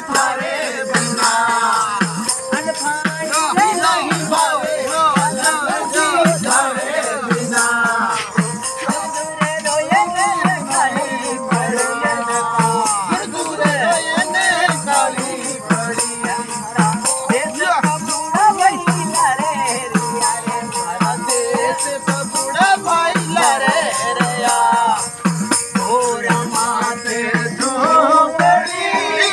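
Rajasthani folk music: a man singing to a bowed ravanhatha fiddle over a steady drone, with jingling percussion keeping a regular beat.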